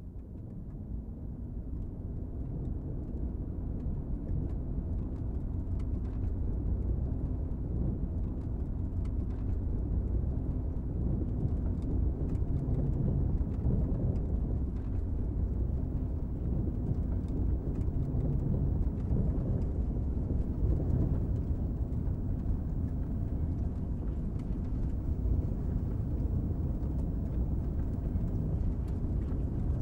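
Steady low rumble of a car driving: road and engine noise building up over the first few seconds, then holding even.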